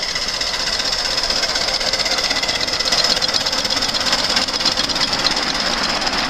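Miniature ride-on steam locomotive running past, its exhaust chuffing in a rapid, steady beat over a hiss of steam, a little louder around the middle as it comes closest.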